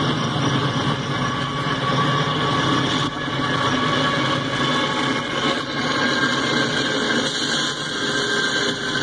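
CSX freight train's diesel locomotives approaching and rolling past, engines running with a steady drone.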